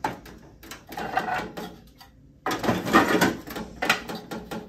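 Small clear plastic drawers being slid into the slots of a metal multi-drawer bin organizer: plastic scraping and clicking against the metal runners. It comes in two stretches, a quieter one and then a louder one after a short pause about two seconds in.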